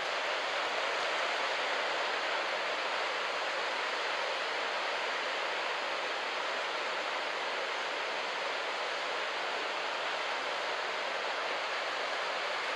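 Steady rush of surf breaking along a sandy beach break: an even hiss of waves, with no single crash standing out.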